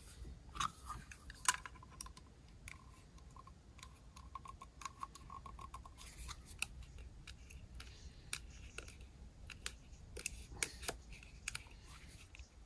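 Hand tools working the end of a steel-wire-armoured (SWA) cable as it is prepared for termination: scattered small metallic clicks, snips and scrapes.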